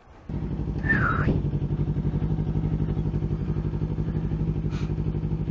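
Motorcycle engine idling with a steady, even pulse. A brief high falling sound about a second in is the loudest moment.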